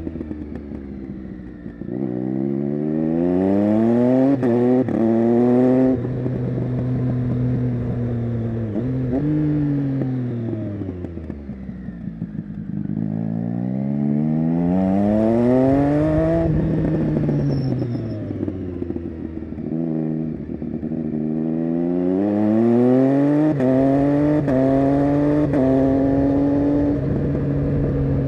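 Triumph Street Triple 675 inline three-cylinder engine through an SC-Project Conic exhaust, accelerating hard three times. Each time the pitch climbs and then drops sharply at quickshifter upshifts. Between the pulls the engine falls back in pitch on the overrun as the bike slows.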